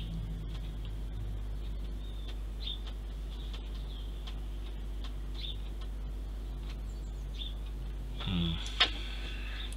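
Steady low hum with a faint high whine, with scattered light ticks from handling thread and small parts. Near the end come a brief murmur from a person's voice and one sharp click.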